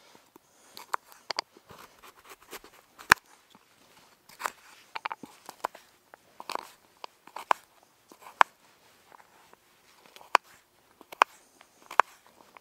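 A knife slicing through a raw sweet potato and knocking down onto a wooden chopping board: a series of crisp, irregular cuts and knocks, about one or two a second.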